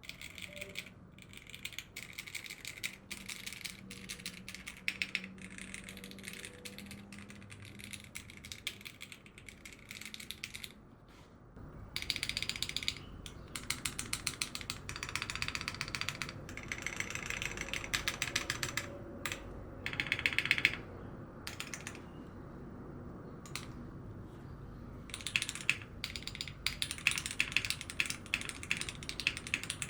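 Fast typing on a mechanical keyboard with Cherry MX Black linear switches, PBT keycaps and an aluminium plate, a rapid clatter of key strokes. The typing pauses briefly about 11 seconds in, then resumes louder.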